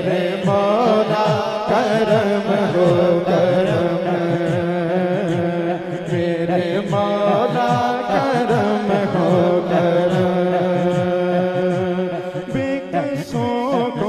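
A man sings an Urdu hamd in an ornamented, melismatic line, with layered chanting voices and a steady drone beneath. A low beat pulses throughout.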